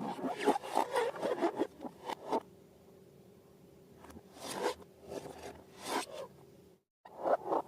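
Slime being squished and stretched by hand, giving quick crackling, scratchy strokes that stop for a moment about two and a half seconds in, come back as a few separate strokes, then break off in a short cut to silence near the end before the crackling resumes.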